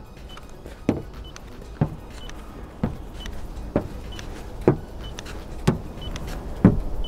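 rDevice RD 1000 Pro paint thickness gauge being pressed to a car's painted steel fender in quick repeated measurements. Its ruby-tipped probe knocks softly on the panel about once a second, and each knock is followed by a short high beep as the gauge takes a reading.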